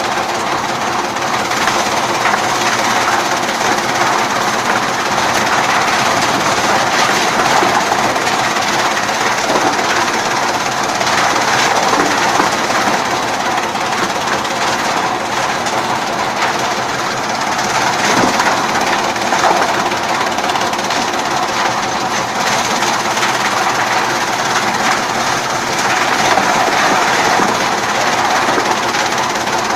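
Chaff cutter running steadily, a loud continuous mechanical clatter with no breaks.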